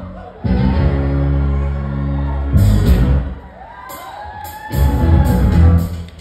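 A live funk band breaks off its groove. A low chord is held for about two seconds, then a cymbal crash, then a short gap filled with audience whoops and cheers, then another held chord with cymbal hits.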